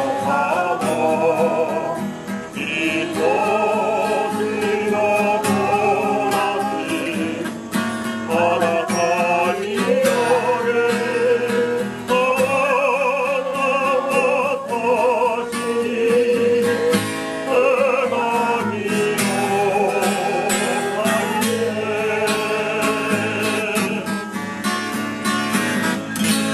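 Acoustic guitar strummed to accompany singing, one continuous song with the voice holding wavering notes.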